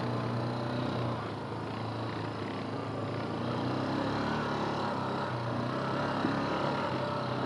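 Yamaha Grizzly 350 quad's single-cylinder four-stroke engine pulling steadily up a steep slope, climbing on its torque with a fairly constant engine note.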